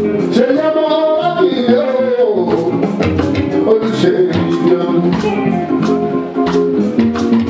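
Live Fuji music: a male vocalist singing into a microphone over his band's steady instrumental backing and regular drum strokes.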